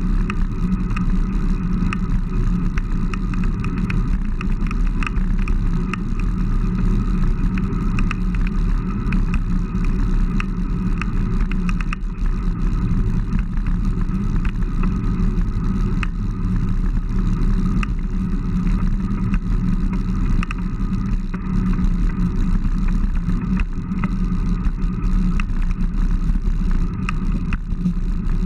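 Steady wind rumble on the microphone of a handlebar-mounted camera on a road bike riding at speed.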